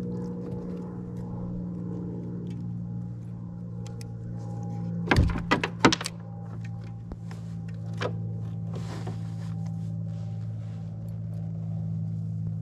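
Steady low motor hum with a few sharp knocks and clatters about five to six seconds in, and a single click near eight seconds.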